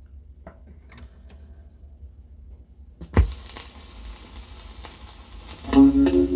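Record player hum with a few faint mechanical clicks. About three seconds in, the stylus drops onto the spinning 45 rpm vinyl single with a sharp thump, followed by surface hiss and crackle in the lead-in groove. Near the end the record's music starts playing.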